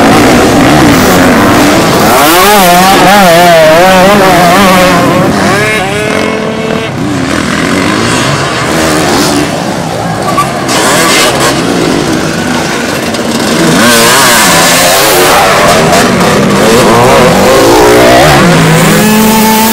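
Off-road racing motorcycles (enduro and motocross bikes) riding hard on a dirt track, the engines revving up and falling off over and over as the riders work through corners and jumps. Several bikes are heard at once.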